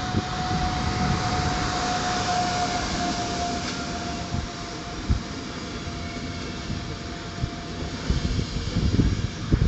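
An electric-hauled passenger train passing close by: the rumble of the coaches' wheels on the rails, with a steady whine that drops slightly in pitch and fades over the first several seconds. Wheel knocks over rail joints come once about five seconds in and then repeatedly near the end.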